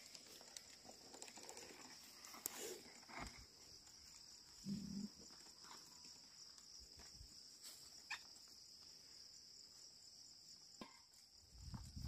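Near silence, with faint scattered clicks and scuffs from an ox-drawn wooden plough working the soil, and one short low call about five seconds in, over a steady faint high hiss.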